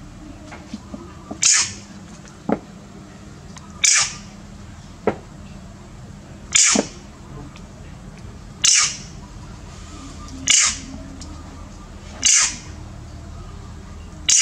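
Hand-pumped plastic spray bottle spraying onto a monkey's wound: seven short hissing squirts, about one every two seconds, with a couple of fainter short sounds between them.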